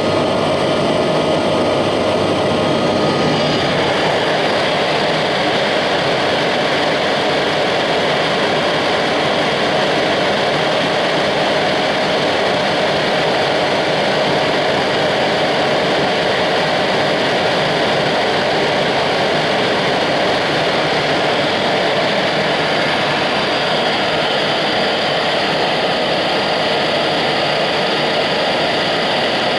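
Bridgeport EZ Path SD lathe running steadily under power: the direct-drive spindle motor gives a continuous hum and whine. The pitch of the whine shifts about three to four seconds in, then holds steady.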